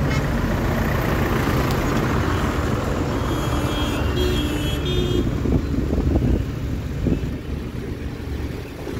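Road vehicle noise while riding a motorized two-wheeler along a busy road with trucks in traffic, a steady rumbling haze. A brief high steady tone, like a horn, sounds about three to five seconds in.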